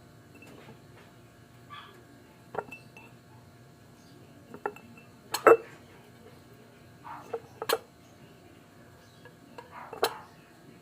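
Dishes and utensils being handled, with a few sharp, separate clinks spread out and soft rustling between them; the loudest clink comes about halfway through.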